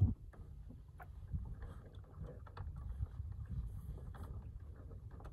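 Wind buffeting the microphone as a low, uneven rumble, with a sharp thump at the very start and a few light knocks after it.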